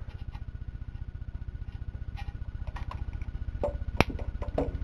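A single sharp little snap about four seconds in: the CRT picture tube's anode discharging through an insulated screwdriver grounded to the chassis and slipped under the anode cap. A few lighter clicks from the blade come around it, over a steady low hum.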